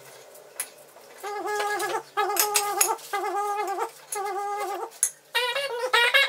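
A comic music cue: a short, wavering, horn-like phrase plays four times in a row, each under a second. Near the end a busier wavering tune follows.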